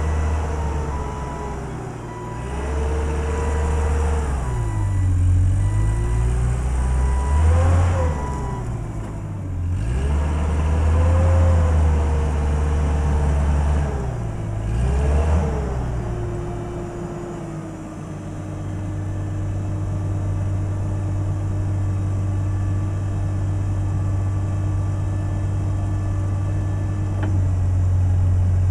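LP-gas engine of a 2006 Combilift C6000 multidirectional forklift revving up and down as it drives and manoeuvres, with a steady warning beep over the first third. It then settles into a steady, even drone for about ten seconds while the mast is raised, changing abruptly near the end.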